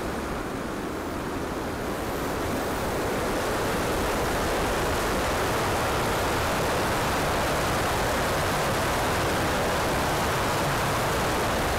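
Steady rushing airflow noise on the microphone of a camera mounted on an RC model plane in flight, growing a little louder about two seconds in and then holding.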